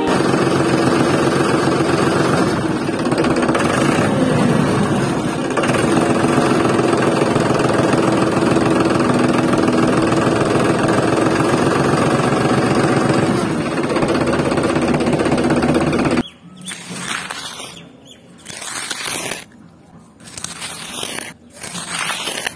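Miniature toy tractor's small electric motor running steadily with a fast buzzing pulse, then starting and stopping in several short bursts over the last few seconds.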